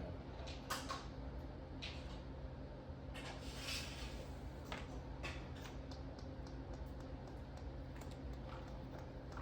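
A steady low electrical hum with scattered small clicks and taps, and a few breathy exhales, the longest about three and a half seconds in, as a child takes deep breaths to calm down.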